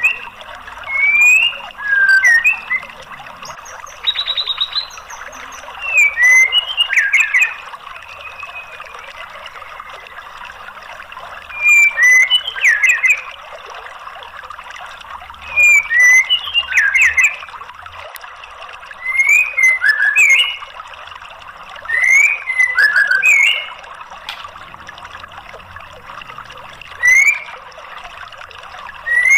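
White-rumped shama calling in short, sharp whistled phrases with quick rising and falling notes, every few seconds, with a brief buzzy rattle about four seconds in. Steady trickling water runs underneath.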